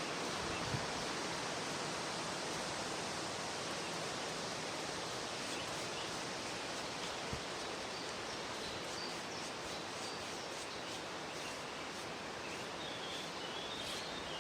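Steady outdoor background noise, an even hiss with no clear source, with a couple of faint ticks and a few faint high chirps in the second half.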